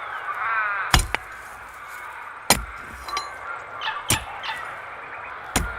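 A metal pick striking rock in sharp clinking blows, four in all, about one every second and a half, with a small second knock after the first. Birds chirp in the background, most clearly at the start.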